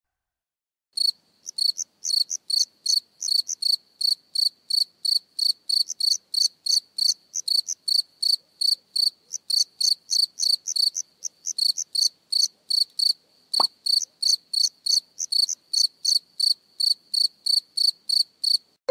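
Cricket chirping steadily, short high chirps at about three a second, starting about a second in and cutting off abruptly at the end.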